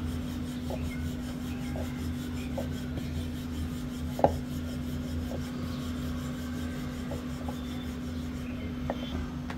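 Wooden rolling pin rolled back and forth over puri dough on a wooden board: a soft rubbing with light knocks of wood on wood at irregular intervals, and one louder knock a little over four seconds in. A steady low hum runs underneath.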